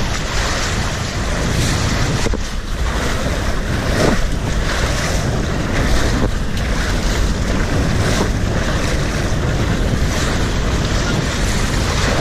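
Water rushing and wind buffeting the microphone as a rider goes down a water slide: a loud, steady wash of noise with a heavy low rumble.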